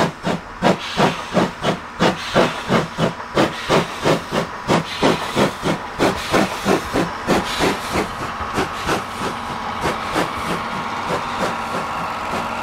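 C11 171 steam locomotive working hard from a low speed, its exhaust chuffs quickening from about three a second to a fast beat that blurs into a steady rush of hissing steam near the end.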